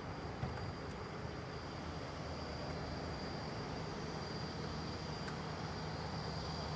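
Distant Boeing 787-8's Rolls-Royce Trent 1000 jet engines running as the airliner rolls slowly down the runway after landing: a steady low rumble with a faint steady high tone above it.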